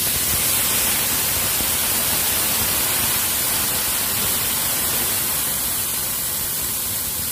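Water poured into a hot wok with oil, hissing and sizzling as it flashes to steam. A steady, loud hiss that eases slightly near the end.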